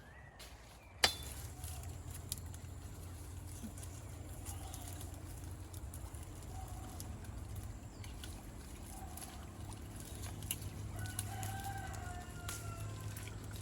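Chickens clucking in short calls, with a longer rooster crow near the end. A single sharp knock about a second in is the loudest sound.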